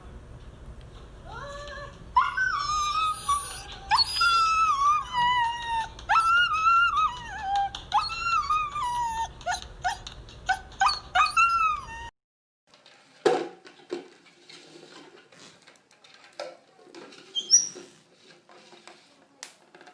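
A dog whining and howling in long, wavering high-pitched cries for about ten seconds, which cut off abruptly. After that come faint scattered clicks and taps.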